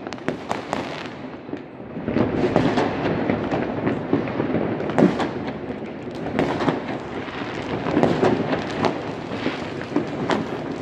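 Many fireworks going off at once across a wide area. A few separate sharp bangs give way, about two seconds in, to a dense, unbroken barrage of overlapping bangs and crackle.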